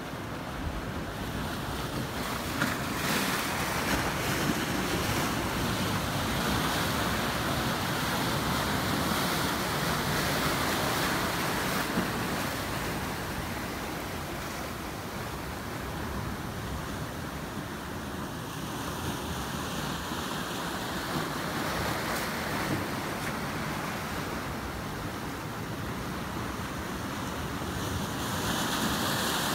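Ocean surf breaking and washing in, a steady rush of water that is louder in the first half, eases off in the middle and builds again near the end.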